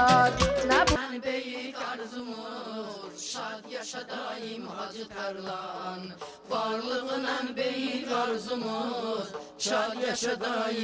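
Loud band music with a deep beat cuts off about a second in. After that, women sing an Azerbaijani folk song with almost no accompaniment, one voice leading through a microphone, with scattered handclaps.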